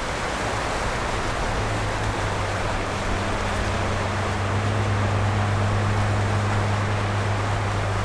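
Sikorsky S-61A helicopter running: a steady rushing noise with a constant low hum that grows stronger a second or two in.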